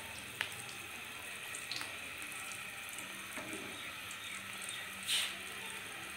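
Chicken samosas frying in oil in a karahi: a steady sizzle with scattered crackles and a few sharper pops, the loudest about five seconds in.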